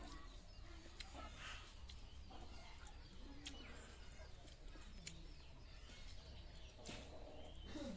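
Faint low bird calls, heard a few times, with a few light clicks.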